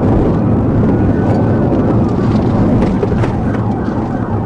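Police car engine and road and wind noise, heard from inside the cruiser, driving fast and accelerating during a pursuit: a loud, steady rumble with a few faint clicks.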